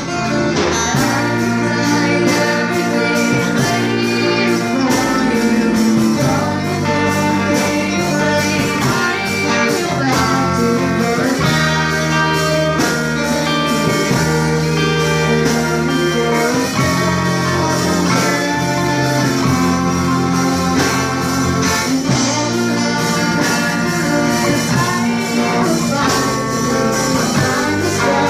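Live amateur band playing a song: a girl singing lead into a microphone over strummed acoustic guitar, bass and a drum kit.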